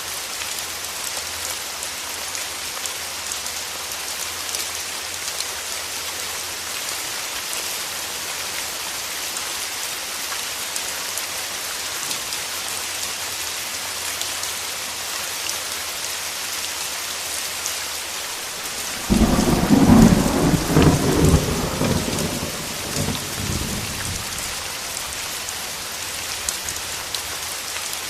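Steady rain hiss. About two-thirds of the way in, a sudden clap of thunder breaks in and rumbles on for about five seconds before fading back into the rain.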